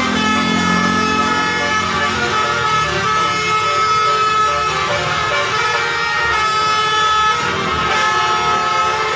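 Bus telolet horn, a multi-tone air horn, sounding a long held chord whose notes change a couple of times, about three seconds in and again near the end.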